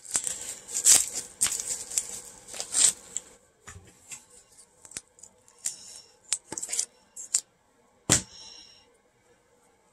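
A padded mailer being opened and unpacked by hand: dense crinkling and rustling of paper and plastic for about three seconds, then scattered light clicks and rustles, with one sharp click about eight seconds in.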